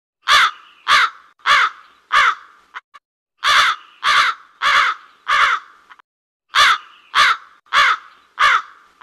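Crow cawing in three series of four caws, each caw about half a second apart, with a short pause between the series.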